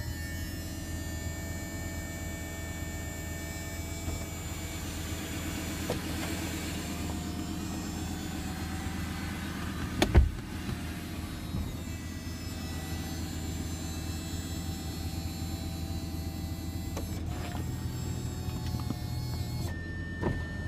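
Lamborghini Gallardo Spyder's electric soft top raising, its motors whining steadily over the V10 idling underneath. There is a loud knock about halfway through.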